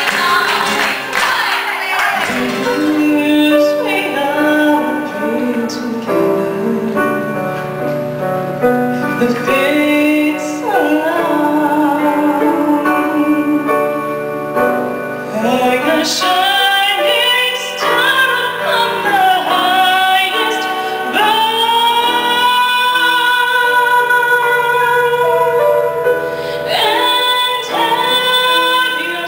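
A woman singing a slow song into a microphone with electric keyboard accompaniment, holding long notes. The first couple of seconds hold the end of a flamenco number with hand-clapping.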